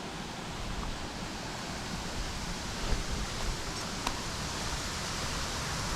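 Steady rushing of a waterfall, slowly growing louder, with a faint click or two.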